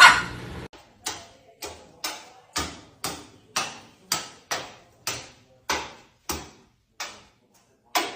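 A loud short burst, then a steady run of sharp taps or knocks, about two a second, each dying away quickly, with a short pause before the last one near the end.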